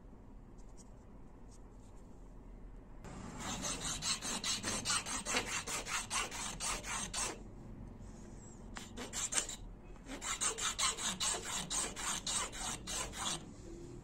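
Hand file rasping across a mountain goat horn knife handle in quick back-and-forth strokes, starting about three seconds in, in two runs with a short pause between them.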